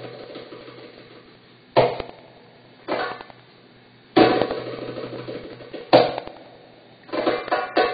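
A drum played solo in a traditional Middle Eastern rhythm: four single loud strikes spaced about a second or more apart, each left to ring and fade, then a quick run of strokes near the end.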